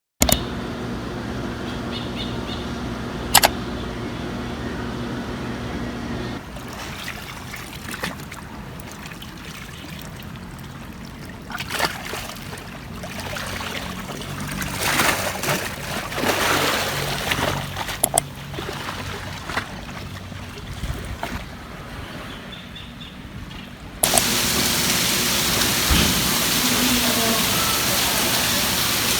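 Water sounds: light splashing and trickling over a low hum, then, near the end, a sudden switch to a steady, even hiss of heavy rain.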